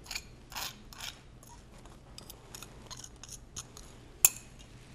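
A fork scraping spices off a small plate into a bowl: a few short scrapes in the first second, then faint light clicks and one sharp clink about four seconds in.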